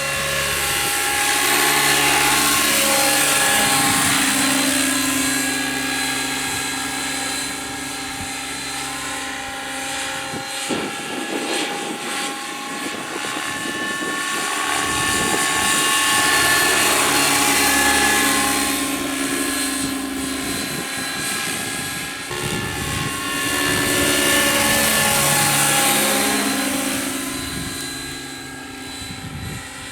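Radio-controlled scale Bell 222 helicopter flying: a steady motor and rotor whine that swells and fades about three times as it passes back and forth, its pitch bending up and down with each pass.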